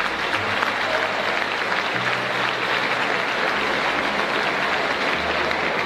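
A large audience applauding, many hands clapping in a steady, dense patter.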